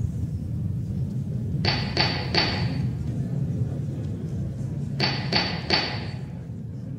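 A gavel rapped three times in quick succession, then three more times about three seconds later, each knock sharp with a short ring, over a steady low rumble.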